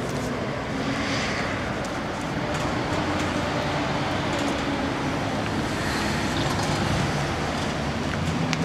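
Steady city street traffic noise, with a vehicle engine humming underneath.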